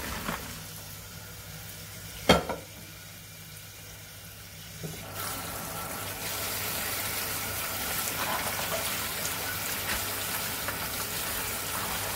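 Hot water and boiled chicken feet pour from a pot into a plastic colander in a sink, with one sharp metal clang of the pot a little over two seconds in. From about five seconds in the kitchen tap runs steadily as the chicken feet are rinsed under it.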